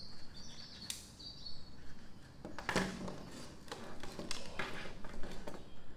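Scattered light clicks and knocks of handling: the plastic frother and digital calipers being moved and set down on a wooden table.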